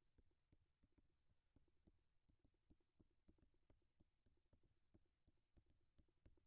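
Near silence, with faint scattered clicks a few times a second.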